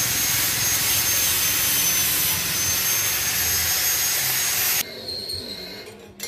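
Electric arc welding with an inverter welder: a steady loud hiss with a thin high whine over it, which stops abruptly about five seconds in.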